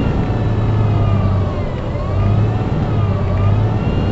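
Cummins ISMe 10.8-litre inline-six diesel of a double-deck bus idling with a steady low hum, heard from inside the bus. Over it, a higher wailing tone rises and falls in pitch every second or two.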